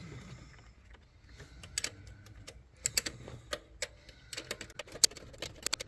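Small metal clicks and taps of a wrench on a 10 mm nut as it is run down onto the alternator's output terminal stud. The clicks are scattered at first and come more often in the last second or two.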